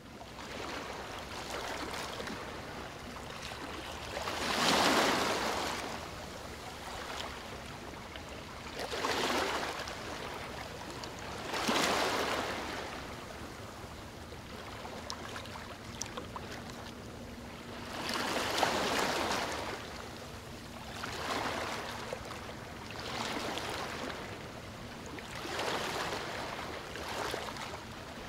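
Ocean waves washing in and drawing back, swelling and fading every few seconds over a constant watery hiss.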